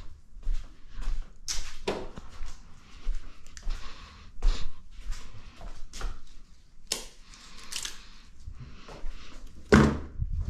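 Irregular sharp clicks and light knocks of small metal engine parts and hand tools being handled on the workbench, with a louder knock near the end.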